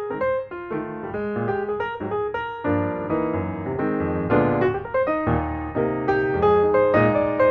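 Background piano music: a tune of single notes that fills out into fuller chords about three seconds in.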